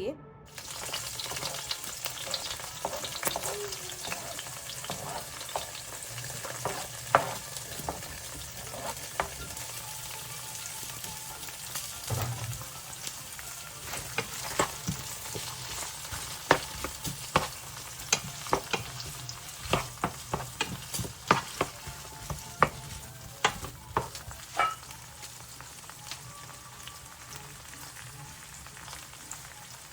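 Food sizzling in hot oil as it is stirred, with a steady hiss and a run of sharp clicks and taps through the middle.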